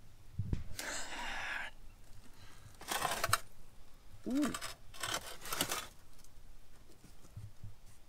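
Cardboard box and old metal parts being handled: a few short bursts of rustling and scraping as the pieces are shifted and pulled about in the box.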